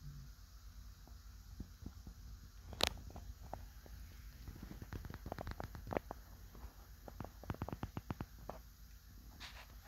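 Faint, irregular clicks and crackles: one sharper click about three seconds in, then a run of quick ticks through the middle, over a low hum.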